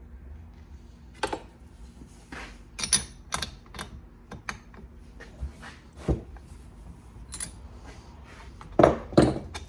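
Hand tools clicking and knocking on a chainsaw's cylinder area while its spark plug is taken out: scattered sharp metal clicks and taps, with two louder knocks close together near the end.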